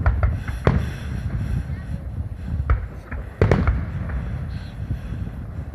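Aerial fireworks shells bursting overhead: sharp bangs over a low rumble, a quick cluster near the start and another around three and a half seconds in.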